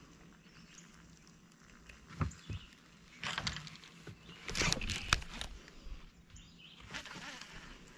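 Bass angler casting and handling a baitcasting rod and reel on a boat: a few sharp clicks and knocks, then two stretches of rushing, whirring noise, most of it from about three to five and a half seconds in.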